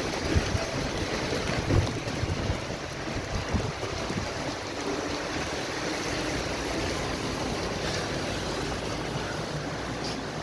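Wind rushing and buffeting the microphone, with gusty low thumps in the first few seconds, then a steadier rush.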